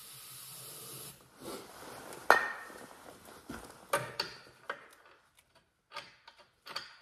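Hands working over a vintage snowmobile with its engine silent: a steady hiss for about a second, then a sharp clack and several lighter clicks and knocks of metal parts being handled.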